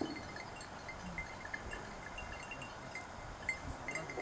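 Faint tinkling of small bells: scattered short, high clinks.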